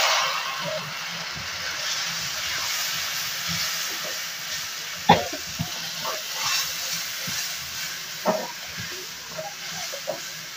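Chopped tomatoes hitting hot oil in a metal kadai with fried onions: a loud sizzle at the start that eases into a steady hiss. A few clicks and scrapes of a metal slotted spoon against the pan come in the middle as the mixture is stirred.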